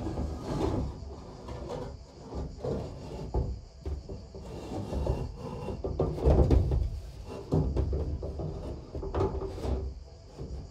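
Irregular wooden scraping and rubbing with dull knocks, the loudest about six seconds in: roof material being pulled and cleared by hand.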